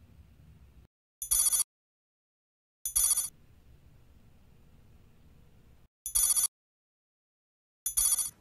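A telephone ringing with an old-style bell ring, in four short bursts of under half a second each, in two pairs: two rings close together, a longer gap, then two more.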